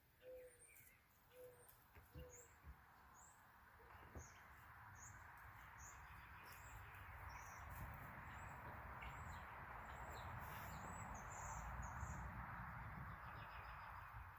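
Faint birds chirping: short high chirps repeated about twice a second. A few light clicks come early on, and a faint steady noise swells in the second half.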